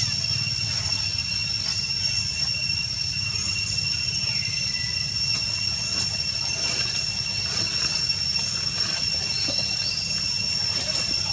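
Steady outdoor ambience: a constant high-pitched whine with a low rumble underneath, and a few faint chirps, one short falling whistle about four and a half seconds in.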